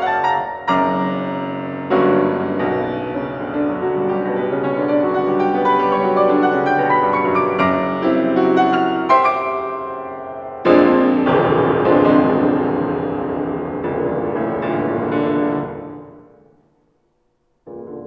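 Solo piano playing a dense, fast-moving passage. About ten seconds in, a loud low chord is struck and left to ring, dying away to silence before the playing starts again right at the end.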